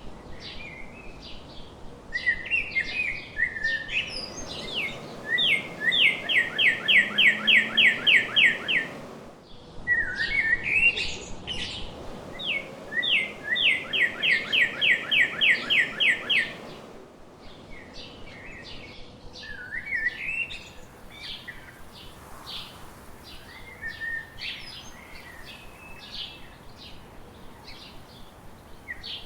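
Several songbirds chirping and singing. Twice, one bird gives a loud song of about a dozen rapid, evenly repeated notes, each lasting a few seconds, among softer scattered chirps.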